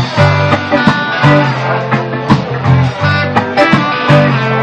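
Live band playing an instrumental passage: two guitars over drums keeping a steady beat.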